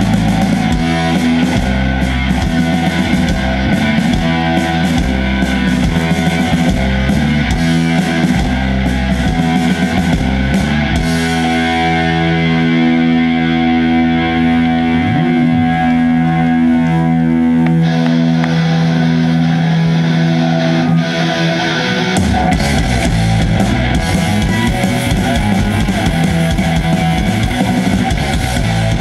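Live instrumental rock from a full band, led by distorted electric guitar over bass and drums. About eleven seconds in the drums drop out, leaving long held guitar notes, and the full band comes back in a little past the two-thirds mark.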